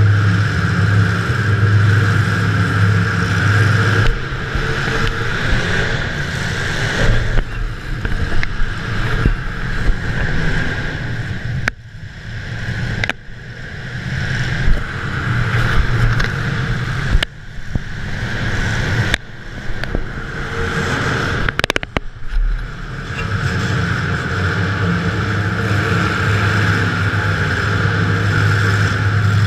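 Demolition derby car's engine running and revving, heard from inside the car, with several sharp bangs in the middle stretch.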